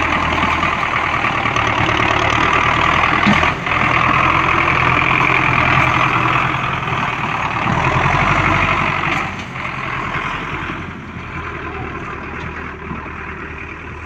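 Belarus tractor's diesel engine running under load as it pulls a trolley heavily loaded with sugarcane up a dirt slope, loud while close, then fading from about ten seconds in as the tractor pulls away.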